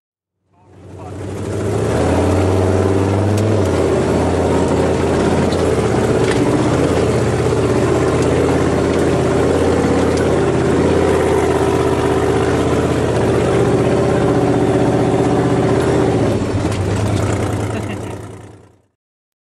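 Hummer H1's engine running, its pitch shifting up and down a little as the vehicle drives; the sound fades in about a second in and fades out near the end.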